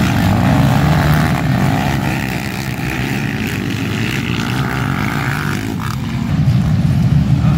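Engines of several racing quads (ATVs) revving hard as the pack passes, pitch rising and falling with the throttle; louder again near the end.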